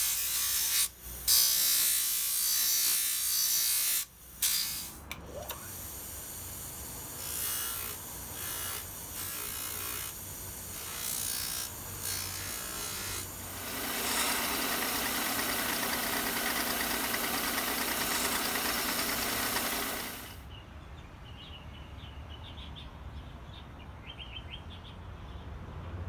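Power sanding in the workshop: a wooden knife handle pressed against a spinning abrasive wheel on a bench grinder, the grinding noise starting and stopping as the wood is put to the wheel and lifted away. Later the steel blade is ground on a sanding drum, a steady grinding hiss for about six seconds that cuts off suddenly.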